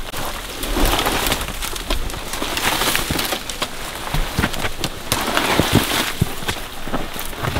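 Boots scuffing and scraping on bare granite and brush rustling against backpacks as hikers scramble up a steep rocky slope, with many irregular small knocks and clicks.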